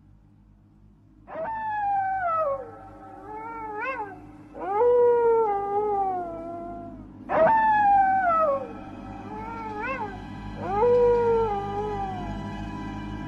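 Four drawn-out, animal-like yowls, each gliding down in pitch, with short rising yelps between them. The second pair repeats the first about six seconds later, over a low steady hum.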